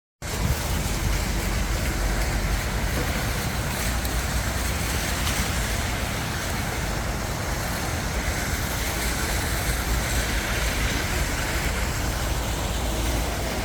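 Steady outdoor noise with a heavy low rumble and a hiss, beginning abruptly just after the start.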